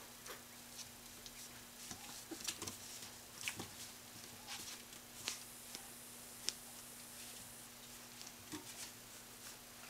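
Faint, irregular clicks and scuffles of Yorkie-poo puppies' claws on a tile floor as they play and tug at a stuffed toy, over a faint steady hum.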